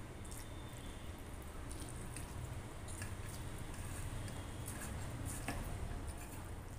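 Eating rice by hand from a steel plate: soft squishing as fingers mix rice with curry, with small clicks of fingers on the plate and quiet chewing. A low steady hum runs underneath.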